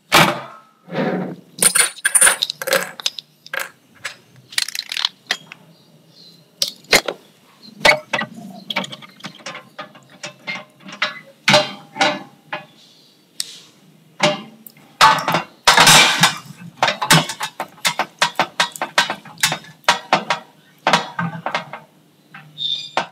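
Kitchen utensils stirring and scraping: a silicone spatula working through thick melted chocolate in a saucepan, and a wooden spoon stirring in a small glass jug, giving an irregular run of short scrapes, taps and clinks.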